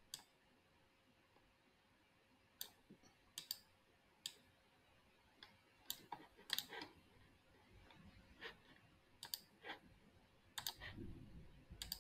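Faint, scattered clicks of a computer mouse, about a dozen spread irregularly over otherwise near-silent room tone, with a faint low rustle near the end.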